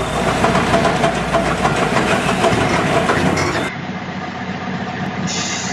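Heavy tipper truck work on a rock site: a loud, dense clattering rumble for the first three seconds or so, then a quieter diesel truck running with its tipper body raised, with a hiss starting near the end.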